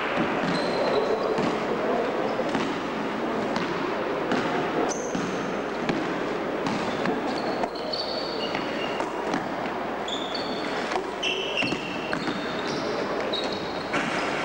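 Basketball game on an indoor court: the ball bouncing with repeated sharp thuds, and short high squeaks of sneakers on the floor. Players' voices are mixed in, all echoing in a large gym hall.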